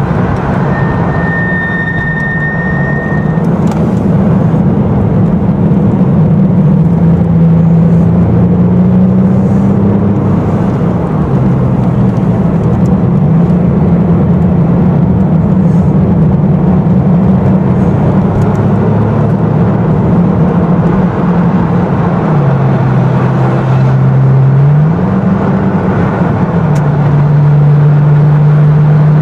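Porsche 996 Carrera 2's flat-six engine pulling hard, heard from inside the cabin, its pitch rising and falling with the revs and stepping down at gear changes of the Tiptronic automatic gearbox. A brief high whistle sounds about a second in.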